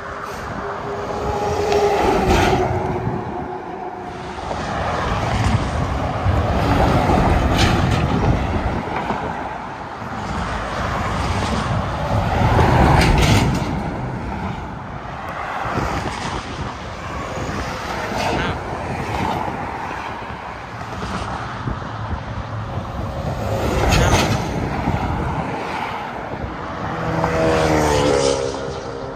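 Highway traffic: trucks and cars passing by on the interstate, each pass swelling and fading, about five loud passes in all. Near the end a short pitched sound of several tones rises over the traffic.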